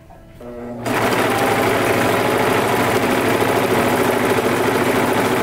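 Sewing machine starting up about a second in and then running fast and steady, stitching a ribbed knit t-shirt.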